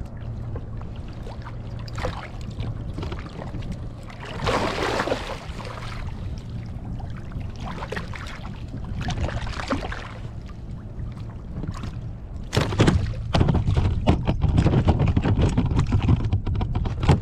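Wind buffeting the microphone over water sloshing around a kayak, with scattered splashes. About two-thirds of the way in the wind rumble grows louder and rougher.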